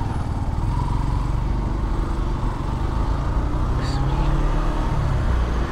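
Motorcycle engine running steadily at low speed, a constant low hum with rumble on the microphone.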